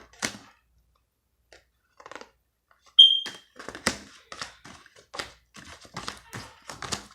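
Tarot cards being shuffled and handled, a string of irregular clicks and rustles. About three seconds in comes a single short, high electronic beep.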